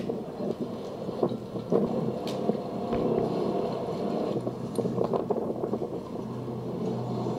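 Low rumbling background noise with a few faint clicks; a steady low hum starts about six seconds in.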